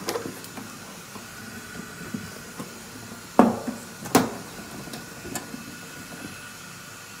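Two sharp knocks on a white ceramic urinal, under a second apart, amid light handling clicks.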